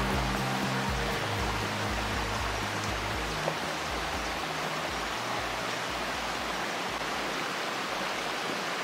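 Shallow rocky forest stream rushing steadily over stones. Low background music notes fade out over the first half.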